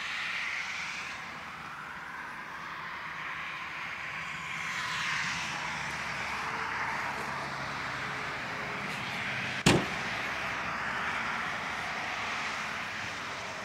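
Peugeot 407 SW estate's tailgate swung down and shut with one sharp slam about ten seconds in, over a steady hiss of background noise.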